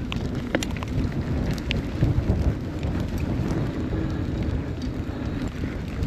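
Mountain bike riding down a dirt trail in light rain: a steady low rumble of wind on the microphone and tyre noise, with scattered sharp ticks.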